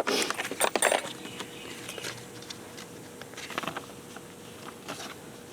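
Handling noises from tire plug kit tools and parts: a dense cluster of clicks and rustles in the first second, then a few scattered clicks.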